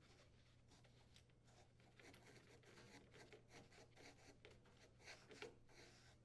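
Faint, scattered clicks and scrapes of a screw being threaded with a nut driver into the cooktop's sheet-metal base, securing grounding wires, with a couple of slightly louder clicks near the end.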